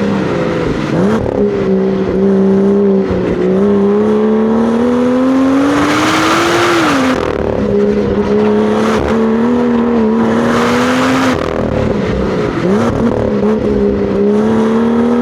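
Exhaust of a BMW F87 M2's straight-six, all stock, recorded right at the muffler while driven on a track. The engine pulls up through the revs for several seconds, drops sharply about seven seconds in, holds steady, dips about twelve seconds in, then climbs again near the end.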